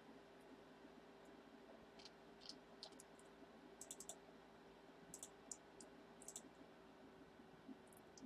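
Faint computer mouse and keyboard clicks, a few at a time in small clusters, over a faint steady hum.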